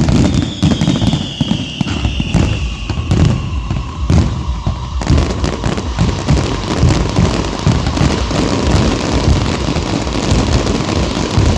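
Fireworks going off in a rapid barrage of deep bangs that thickens into an almost continuous rumble after about five seconds. A high whistle falls slightly in pitch over the first few seconds.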